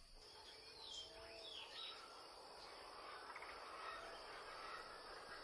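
Faint natural outdoor ambience: a steady high insect drone, with a few short, falling bird chirps about one and two seconds in.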